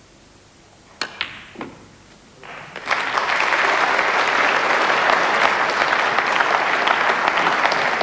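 Snooker balls clicking twice about a second apart: the cue striking the cue ball, then the cue ball hitting the object ball, which is potted. Audience applause swells from about two and a half seconds in and carries on steadily.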